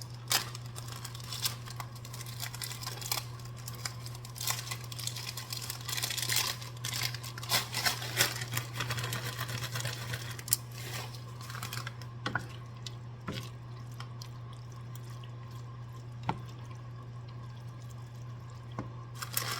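A plastic bag of frozen peas crinkling and peas being poured into a pan of thickened gravy, with a few sharp clicks and knocks against the pan. A steady low hum runs underneath.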